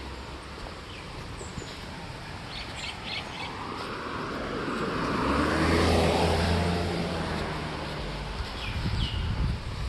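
A motor vehicle passes on the road, growing louder to a peak about six seconds in and then fading, its engine note falling as it goes by. Birds chirp in the background.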